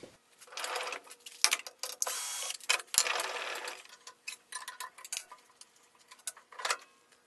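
Irregular metal clicks, clinks and scraping as a wobble-wheel dado blade is taken apart and lifted off the table saw's arbor by hand.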